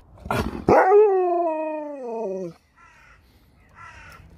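A husky-type dog gives one long howling 'talk', a single call of about two seconds that slides slowly down in pitch and stops abruptly. A few faint short sounds follow near the end.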